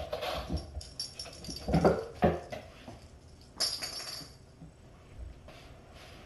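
Kittens giving short mews and cries, loudest about two seconds in, with a brief rustle of fabric just before four seconds.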